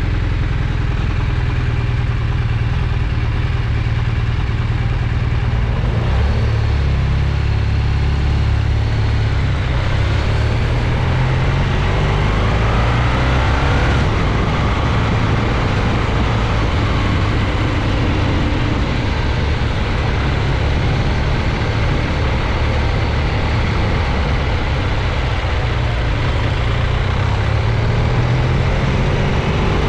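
BMW R1200GS Adventure's boxer-twin engine running on the move, under heavy wind noise buffeting the microphone. The engine pitch climbs a couple of times, about a third of the way through and again near the end.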